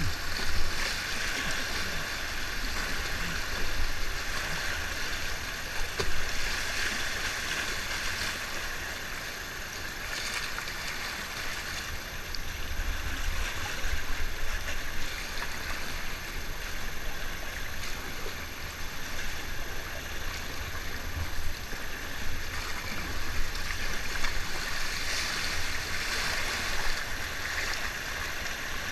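Fast-flowing river water rushing and churning around a whitewater kayak, a steady noise with a low rumble underneath.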